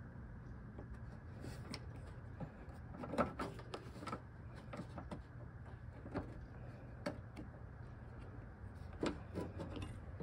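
Scattered small metallic clicks and taps as a loosened bolt on a Ford Mustang's hood hinge is turned out by hand and the hinge is held against the body. The clicks bunch together about three seconds in and again near the end, over a steady low hum.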